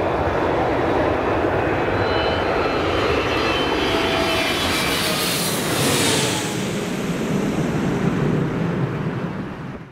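A Boeing 777 Freighter's two GE90-110B1L turbofans on final approach, passing low overhead. A steady jet roar carries a whining fan tone that falls in pitch as the aircraft goes over, about six seconds in. A deeper rumble follows as it moves away, and the sound fades out at the end.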